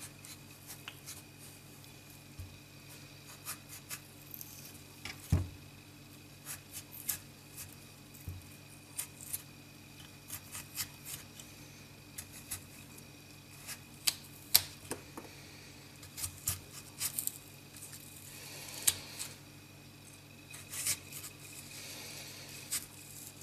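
A hollow being cut and scooped out of a raw black radish: irregular crisp scrapes and clicks as the blade works into the firm flesh, a few of them sharper and louder.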